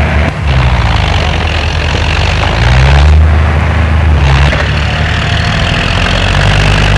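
Bulldozer engine running hard under load as it pushes over a tree, its note shifting up and down a few times.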